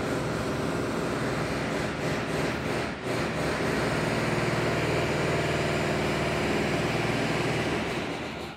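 An engine running steadily, loud and droning, that dies away near the end.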